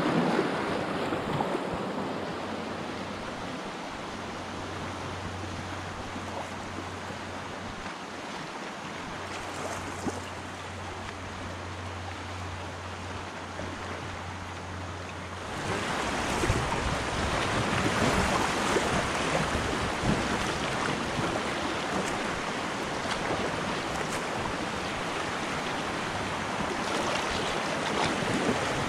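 Creek water rushing over rocks and shallow rapids around a packraft, growing louder about halfway through as the raft runs into faster, whiter water.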